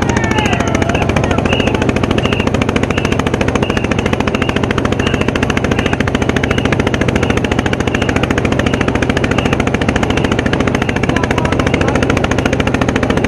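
Motorboat engine running steadily and close, a fast even chugging.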